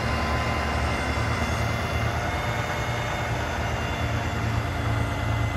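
Diesel engine of a boom crane truck running steadily, powering the crane as it hoists a roof truss. It makes a low hum with a thin steady whine above it.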